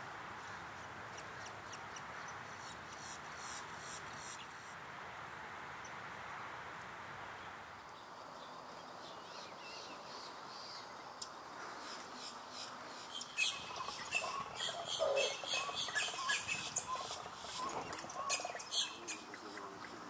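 Wild birds chirping and calling over a steady background hiss. Faint high chirps in the first half give way, about two-thirds of the way in, to a busier run of louder calls, some high and sharp, some lower-pitched.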